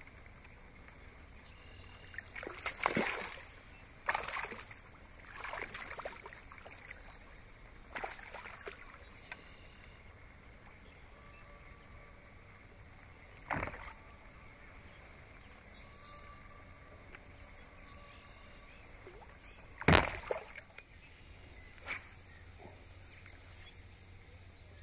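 Water splashing and sloshing in short bursts beside a kayak as a hooked bass is fought at the surface, with a few sharp knocks in between, the loudest about twenty seconds in.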